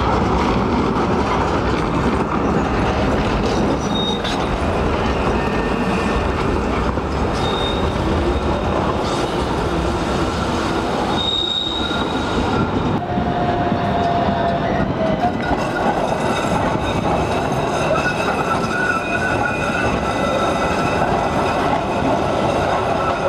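Trams running on street track: a steady rumble of steel wheels on rail, with several short high-pitched wheel squeals and one longer, lower squeal a little past the middle.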